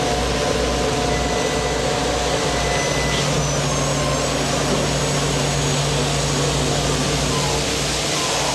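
A fishing boat's deck machinery running with a steady drone and a low hum while a crane lifts a brailer of fish from the seine net.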